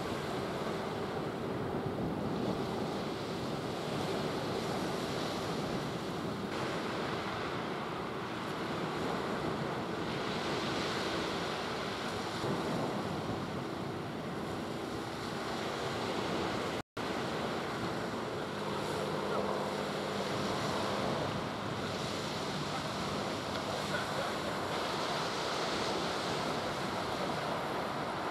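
Sea surf washing on the shore in slow swells, with wind buffeting the microphone and a faint steady low hum underneath. The sound drops out for an instant about two-thirds of the way through.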